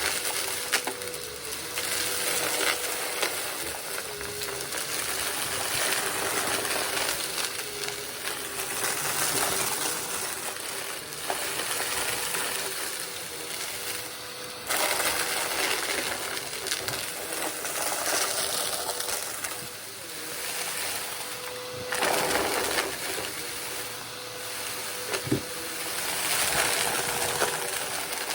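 Vacuum cleaner running over carpet, its motor a steady hum under the airflow noise, rising and falling with each push and pull. Dirt and grit crackle and rattle as they are sucked up the nozzle.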